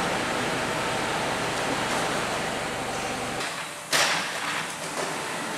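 Crate stacking and destacking machine running with a steady mechanical noise. Its low hum drops out about three and a half seconds in, and a moment later there is one sharp, ringing clatter.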